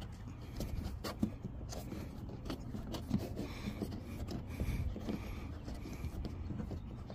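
Faint rubbing and scraping of a rubber plug as fingers work it into a hole in a truck body panel, with small scattered clicks over a low background rumble.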